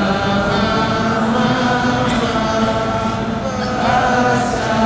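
A congregation singing in unison, a slow chanted mnemonic of syllables in long held notes. It is the memory aid for the initials of the first ten Ottoman sultans.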